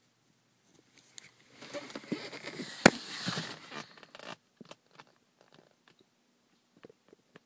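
Rustling and handling noises, as of hands rummaging among things, with one sharp click a little under three seconds in, then a few scattered small clicks and taps.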